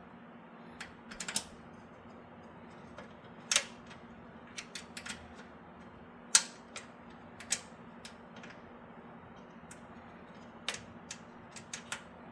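Irregular sharp clicks and taps of PC case parts and hardware being handled while a riser cable and graphics card are fitted into the case, the loudest about three and a half and six seconds in.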